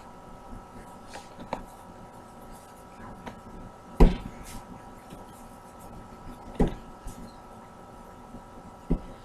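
Hands working and pressing calzone dough on a countertop: a few dull knocks and light taps, the loudest about four seconds in, over a faint steady hum.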